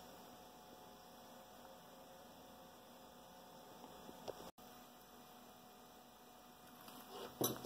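Near silence with a faint steady electrical hum, a soft tick about four seconds in, and a brief louder noise near the end.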